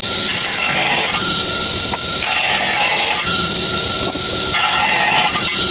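Table saw running with a steady whine while its blade cuts through wooden boards three times, each cut about a second long.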